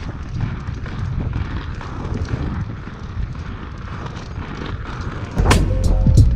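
Inline skate wheels rolling fast over promenade paving, an uneven low rumble with wind on the microphone, as the skater is towed by a husky. About five seconds in, music with a steady beat starts over it.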